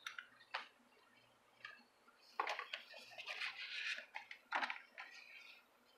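A few light clicks and taps, then from about two seconds in a stretch of crackly paper and cardboard rustling as a paper user's guide booklet is handled and pulled out of the phone's box.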